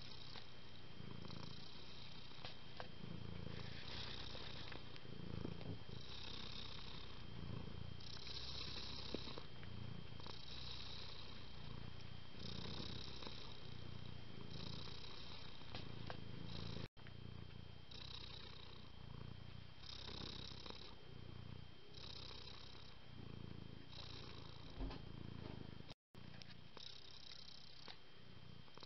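Tabby cat purring steadily, the purr swelling and fading with each breath about every second and a half. The sound cuts out briefly twice.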